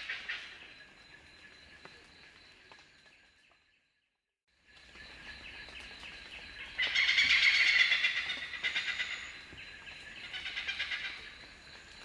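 Oriental pied hornbills calling in sharp, loud runs of rapid 'kek-kek-kek' notes. One run fades out at the start. After a short silence, a loud bout comes in the middle and a shorter one follows near the end.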